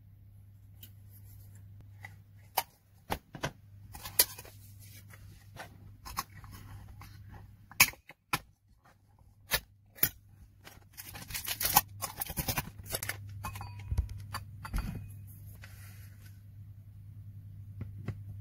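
Handling of a metal matcha tin being opened: a series of sharp clicks and taps as the plastic cap comes off and the ring-pull metal seal is pulled, then a couple of seconds of dense crinkling a little past the middle. A steady low hum runs underneath.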